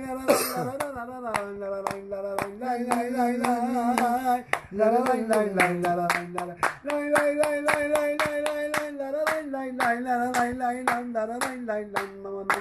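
Hands clapping and snapping in time, two to three sharp claps a second. Under them runs a melody of long, slightly wavering held notes that step from one pitch to the next.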